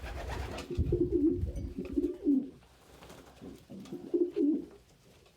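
Domestic pigeons cooing: several bouts of low, warbling coos, with a low rumble under them during the first second and a half.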